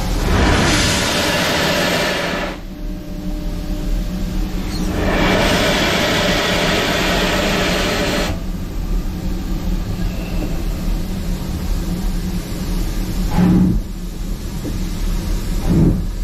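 Steam locomotive 78022, a BR Standard Class 2MT, pulling away with its cylinder drain cocks open: two long loud hisses of blowing steam, then quieter running with a few slow, heavy exhaust beats near the end.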